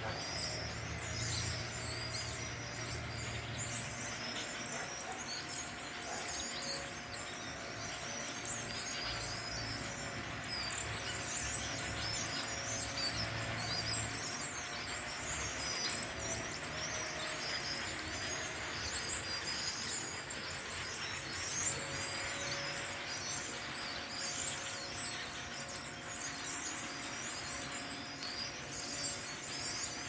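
A large flock of perched birds chattering, with many high chirps overlapping into a continuous din. A low hum runs beneath it for about the first half.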